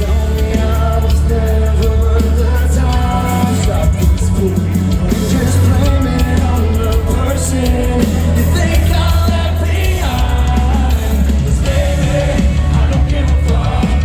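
Metalcore band playing live at full volume: heavy bass and drums under a singing vocal.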